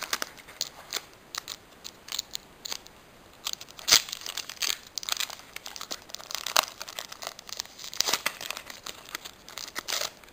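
Foil wrapper of a Pokémon trading-card booster pack crinkling and tearing as it is ripped open by hand: irregular sharp crackles, loudest about four seconds in.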